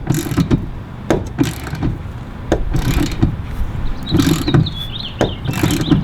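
Hand tools working on a car's underside: irregular ratchet clicks and metal knocks as bolts are run in on subframe connectors.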